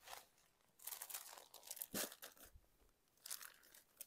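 Crinkling, rustling handling noise of sarees being picked up and moved, in three short bursts.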